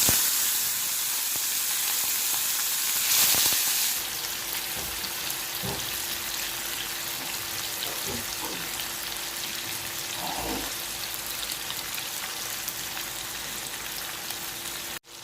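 Marinated fish pieces sizzling as they shallow-fry in hot oil in a pan. The sizzle swells louder about three seconds in, then settles to a steady hiss with a few faint knocks.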